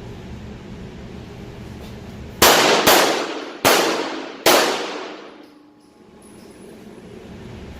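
Four 9mm shots from a Glock 34 pistol, the first two about half a second apart and the next two under a second apart. Each shot rings out with a fading tail.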